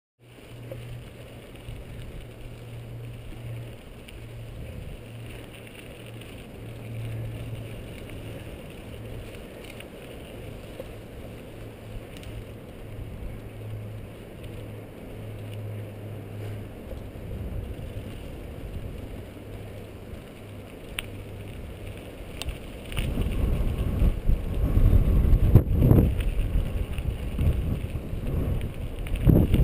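Mountain bike riding on a dirt singletrack, heard from a camera on the bike or rider: steady rolling and trail noise with a low hum, and wind buffeting the microphone. About 23 seconds in, the hum stops and the wind rumble grows much louder.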